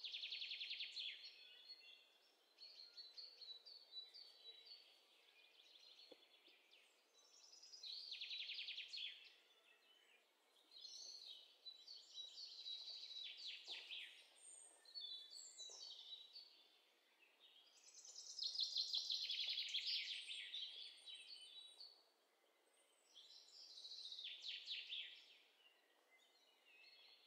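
A small songbird singing faintly: short phrases of rapid trills and chirps, about seven of them, each a second or two long and a few seconds apart.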